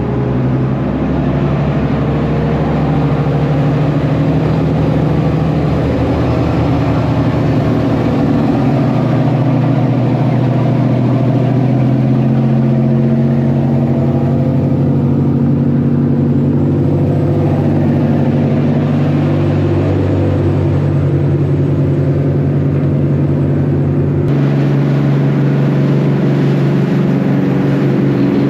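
A jet-drive fishing boat's engines running steadily under way, with a strong steady hum. The sound shifts abruptly about 24 seconds in, losing its deepest rumble.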